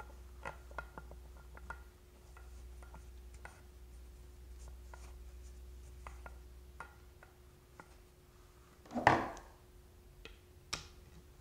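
Small clicks and faint scraping of a metal weight bolt being threaded by hand into the butt of a pool cue, then tightened with a Phillips screwdriver. A single louder knock about nine seconds in, and a sharp click shortly after.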